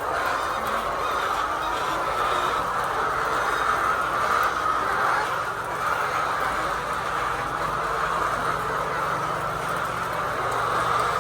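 A large flock of laying hens in a poultry shed, a steady din of overlapping clucking and cackling.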